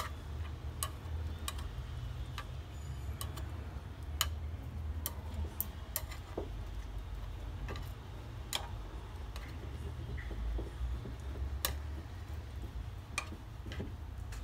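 Bacon slices frying on a nonstick grill pan, the fat spitting in irregular sharp pops about once a second over a low steady rumble.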